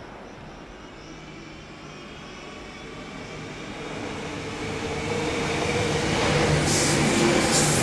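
Renfe Cercanías electric commuter train approaching and running past, growing steadily louder, with a steady hum. A hiss of wheels on rail comes in near the end as the cars go by.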